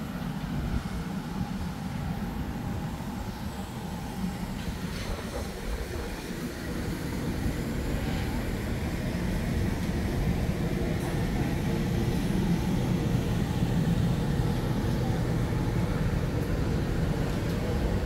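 Steady low vehicle rumble, growing louder from about six seconds in and then holding.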